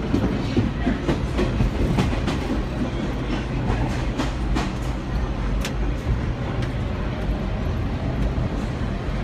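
R38 and R40 slant subway train running, heard from inside the cab: a steady low rumble and hum, with irregular clacks of the wheels over the track.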